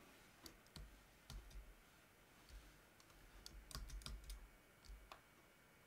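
Faint, scattered clicks and soft low thumps, mostly in a cluster about a second in and another from about three to four and a half seconds in.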